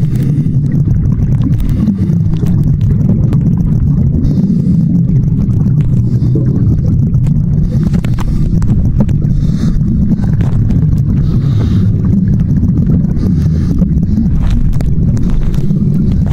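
Steady, loud low rumble of water heard through a camera submerged in murky water, with faint scattered clicks and brief hissy patches from time to time.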